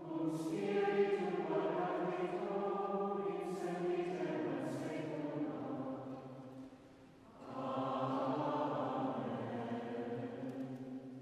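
A choir chanting liturgical plainchant together, with a short pause about six and a half seconds in before the next phrase begins.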